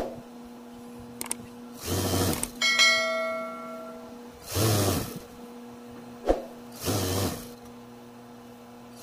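Juki industrial sewing machine stitching a hem in three short bursts, with its motor humming steadily between them. A bell-like notification chime rings for about a second and a half near the middle, from the on-screen subscribe-button animation.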